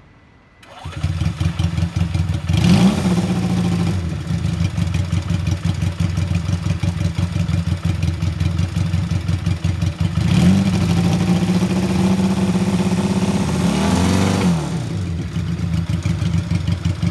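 1965 Honda CA95 Benly 150's parallel-twin four-stroke engine started on its electric starter, catching within a second. It is blipped once about two and a half seconds in, runs at a faster idle from about ten seconds, is revved once more near fourteen seconds, and drops back to a steady idle.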